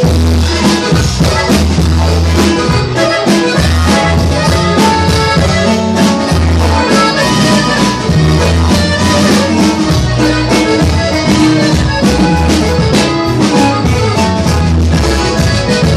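Live norteño band playing an instrumental passage: accordion carrying the melody over a pulsing bass line and steady percussion, with no singing.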